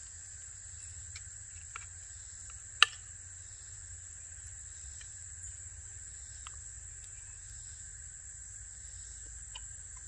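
Steady, high-pitched insect drone from the surrounding woods, with a few light clicks of a knife and fork against a wrought iron skillet, and one sharp clink about three seconds in.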